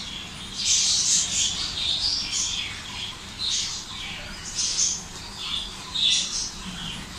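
Thick, wet spiced batter squelching as a bare hand squeezes and mixes it in a steel bowl, in irregular squishy bursts every half second or so.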